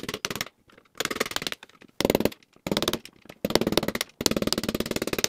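Flathead screwdriver tip tapping and chattering against a security screw head on a metal chassis, turning the screw loose. It comes as about half a dozen bursts of rapid clicking with short pauses between them.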